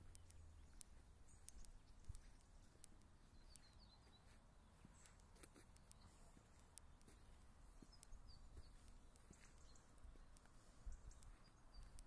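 Near silence: faint outdoor ambience with a few faint bird chirps and scattered light ticks.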